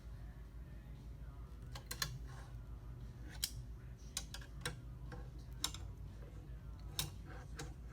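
Light, irregular clicks and taps of small metal AR-15 rifle parts being handled and set down, about eight in all, over a low steady hum.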